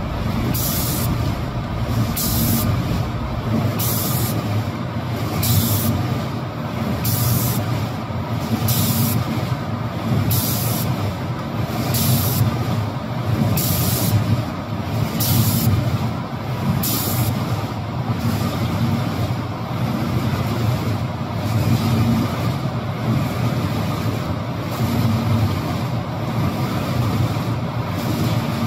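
Automatic cabinet-door spray-painting machine running with a steady mechanical hum, while its spray guns give short, sharp hisses of air and paint every one to two seconds as they sweep over the panels. The hisses stop a little past halfway through.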